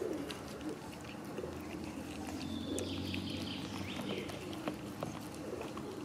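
Cats eating wet food out of plastic tubs: a run of small, irregular, wet chewing and lapping clicks.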